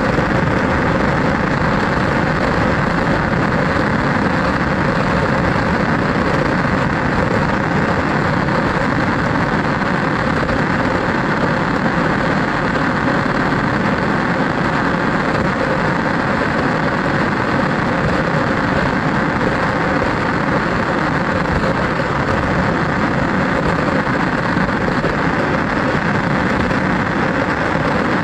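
Steady running noise of an RC car's motor and drivetrain as it drives, unbroken throughout with a faint held whine.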